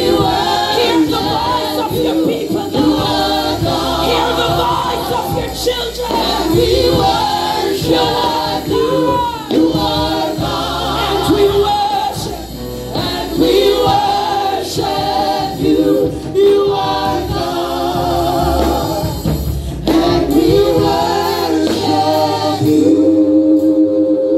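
Gospel worship team singing together in parts into microphones, with keyboard accompaniment underneath. Near the end the voices settle onto one long held chord.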